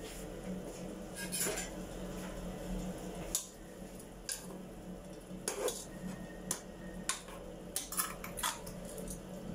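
Kitchen utensils and cookware clinking and clattering in a string of separate knocks and taps, a quick cluster of them near the end, over a steady low hum.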